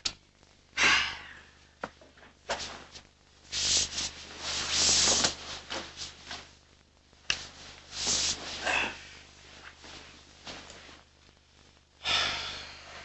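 Bedcovers rustling and shifting in several separate swells as people settle into bed, the biggest about a second in and around the middle, with a few short clicks between.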